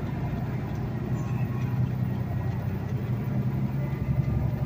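Tractor-trailer's diesel engine and road noise heard from inside the cab while driving, a steady low drone.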